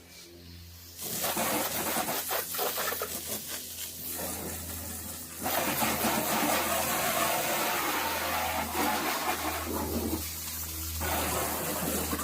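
Water spraying hard, starting about a second in and getting stronger about halfway through, over a steady low hum.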